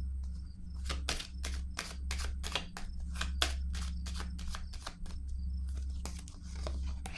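A deck of tarot cards being shuffled by hand: a quick run of crisp card snaps, about three or four a second, that stops near the end. A low steady hum lies underneath.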